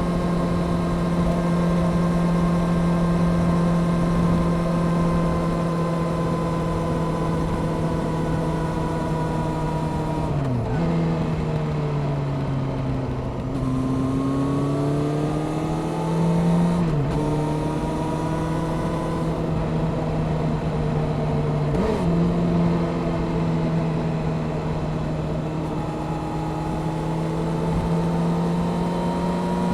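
Honda CBR600F Sport's inline-four engine running at a steady cruise through a Delkevic aftermarket exhaust. About a third of the way in the engine note drops sharply, then climbs slowly; brief dips follow near the middle and about two-thirds of the way through, before it settles back to a steady note.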